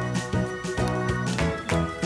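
Background music: an instrumental track with a steady beat and bright, plucked or keyboard-like notes.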